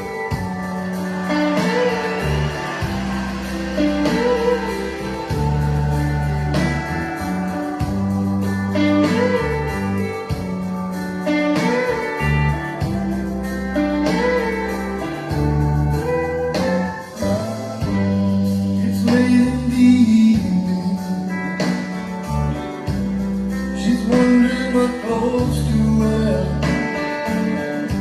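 Slow ballad music: a guitar melody over held bass notes, with no words sung in this part.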